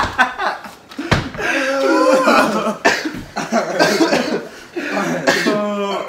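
Several men laughing hard together, loud bursts of group laughter, with a sharp smack about a second in.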